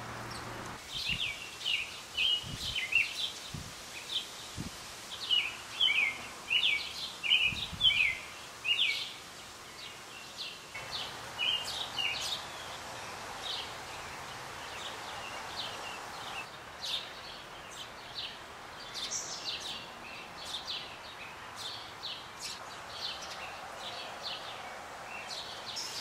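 House sparrows chirping: many quick chirps for the first nine seconds or so, then scattered chirps, over a steady outdoor hiss. A few soft low thumps in the first eight seconds.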